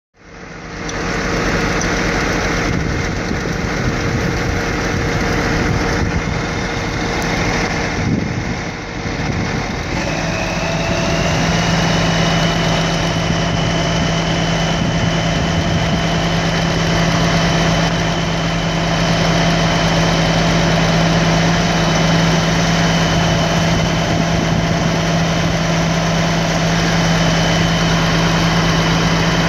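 Heavy wrecker tow truck's diesel engine running steadily. About ten seconds in, a strong steady hum and a higher whine come in and hold.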